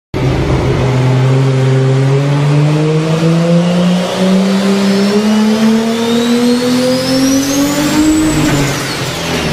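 Modified off-road truck's engine at full throttle on a chassis dynamometer, climbing steadily in pitch through a dyno pull for about eight seconds, with a high whine rising alongside it. Near the end the engine note drops away.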